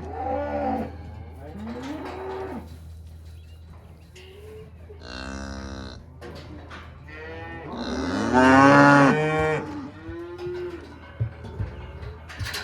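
Cattle mooing, about five calls from more than one animal, the longest and loudest about eight seconds in. A steady low hum runs underneath, and a few sharp knocks come near the end.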